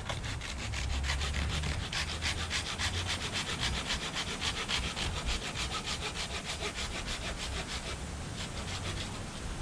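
Hand saw cutting through wood in quick, even strokes, with wind rumbling on the microphone.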